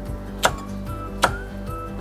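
Chef's knife chopping through carrot onto a wooden cutting board: two sharp knocks a little under a second apart, over soft background music.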